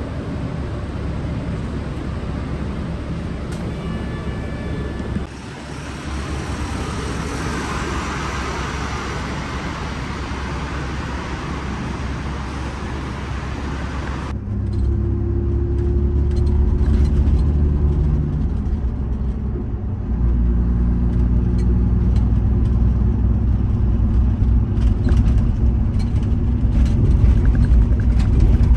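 Steady traffic and engine noise under a covered bus terminal, with a short tone about four seconds in. About halfway through the sound changes abruptly to the low, steady drone of a bus engine and road noise heard from inside the moving bus.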